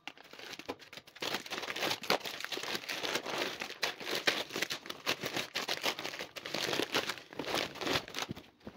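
Plastic grocery packets crinkling and cloth tote bags rustling as items are pulled out one after another, a continuous irregular crackle.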